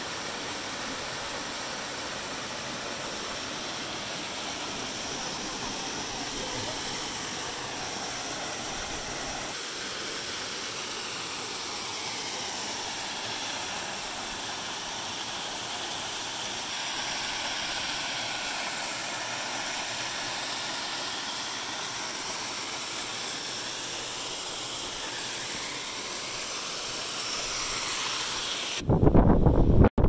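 Steady rush of a waterfall, an even hiss of falling water. About a second before the end it cuts abruptly to louder, rumbling wind buffeting on the microphone.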